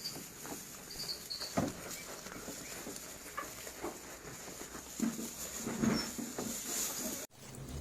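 Garut sheep eating fresh grass: irregular crunching, tearing and rustling of grass as they chew. The sound breaks off suddenly near the end.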